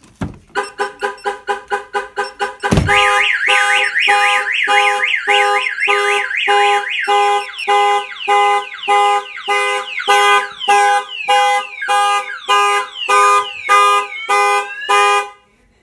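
Viper 5305V car alarm siren set off by a door being opened. A quick run of short pulsed tones comes first, then, after a thump about three seconds in, the full multi-tone siren cycles through repeated pulses and rising sweeps. It cuts off suddenly near the end.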